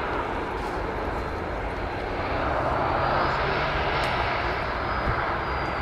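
Boeing 737 airliner's turbofan engines running at taxi power: a steady jet rumble with a thin high whine. The whine rises a little and falls again as the jet passes, loudest about halfway through.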